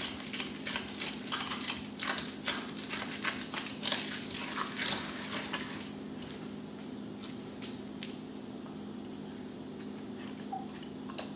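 Hands squishing and mashing avocado in a glass bowl: a quick run of wet squelches and small clicks for about six seconds, then it goes mostly still. A steady low hum runs underneath throughout.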